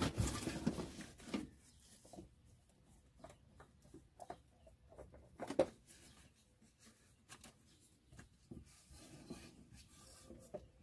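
Faint rubbing, scraping and small knocks of a hand unscrewing a spin-on oil filter and working it off its mount, with one sharper knock about five and a half seconds in.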